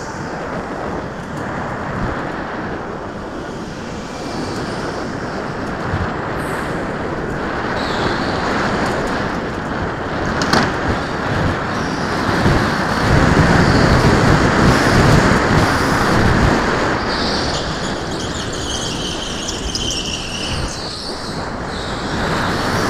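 Go-kart driving on an indoor concrete track, heard from a camera mounted on the kart: steady motor and tyre noise, at its loudest about thirteen to sixteen seconds in, with a high wavering squeal a few seconds later.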